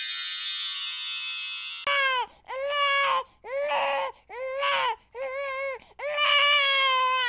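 A shimmering chime-like sound effect of many high ringing tones cuts off about two seconds in. It is followed by a baby-crying sound effect: a string of about six wailing cries, the last one the longest.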